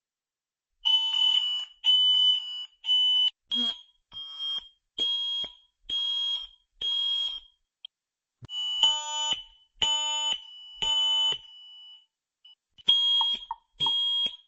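Security alarm system's fire alarm sounding in test: high-pitched beeps in groups of three with a longer pause between groups, the temporal-three fire evacuation pattern, with a few shorter chirps among them.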